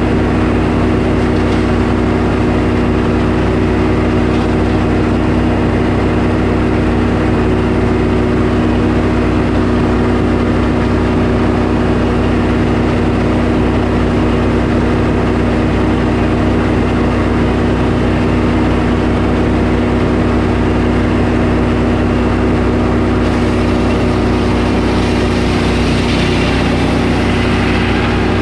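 Portable sawmill's engine running steadily at a constant pitch through a cut in a pine log, with a brighter hiss joining near the end.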